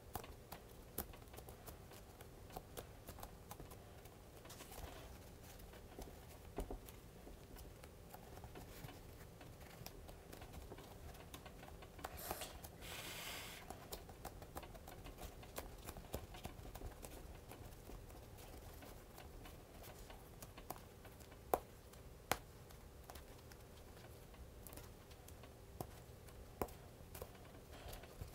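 Faint handling of foam pieces being pressed together along seams glued with contact cement: scattered small clicks and taps, a brief rustle about twelve seconds in, and two sharper clicks a little past twenty seconds, over a faint steady hum.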